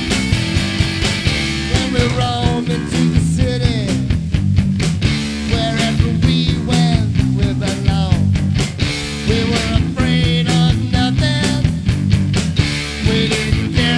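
Rock music with guitar over a steady beat, a melody line sliding between notes.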